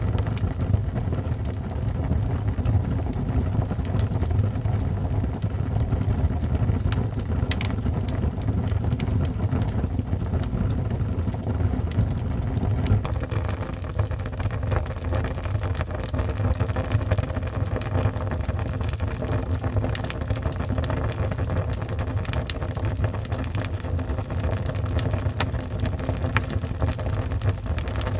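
Wood fire burning in a fireplace: a steady low roar with scattered crackles and pops.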